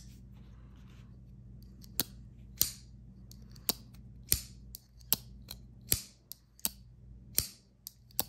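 Flipper folding knives, a Benchmade 490 Arcane assisted flipper and a Zero Tolerance 0450, being flipped open and snapped shut by hand. After a quiet first two seconds, about a dozen sharp metallic clicks of the blades locking open and closing come at an irregular pace, some with a brief ring.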